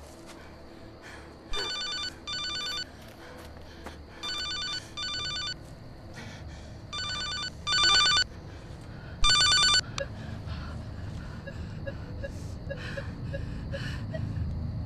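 Cell phone ringing with a double-ring pattern: three pairs of rings, then a single louder ring that cuts off short, as if the call is answered. A low rumble builds near the end.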